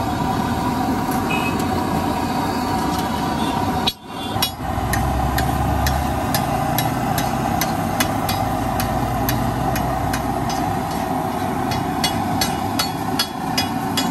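Egg bhurji sizzling on a large flat tawa griddle, with a low rumble underneath. In the second half, two steel spatulas clack and scrape against the griddle as the mixture is stirred, about two strikes a second and faster near the end.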